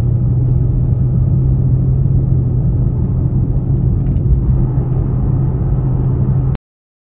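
Ferrari 812 Superfast's V12 engine and road noise heard inside the cabin while cruising, a steady low drone that cuts off abruptly near the end.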